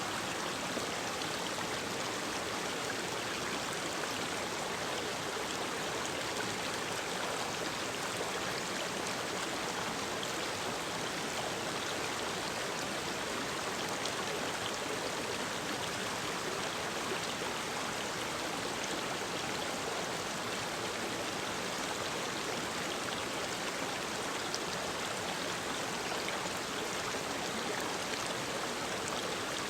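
Mountain stream running steadily over rocks, a continuous even rush of water.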